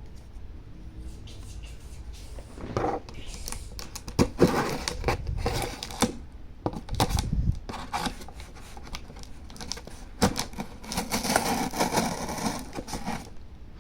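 Shipping package being opened by hand: irregular scraping, tearing and rustling of cardboard and packaging, with scattered knocks and clicks.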